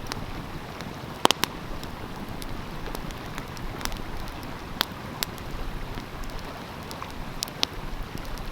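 Wood fire crackling with scattered sharp pops, the loudest a quick pair about a second in, over the steady rush of a flowing stream.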